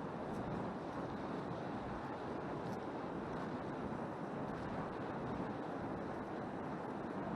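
Steady rushing noise of a bike rolling along a dirt trail: tyres on the ground and wind over the microphone, with two faint ticks in the first three seconds.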